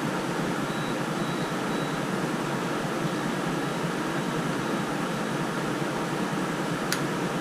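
Steady fan-like air noise with no change in level, with one sharp click near the end.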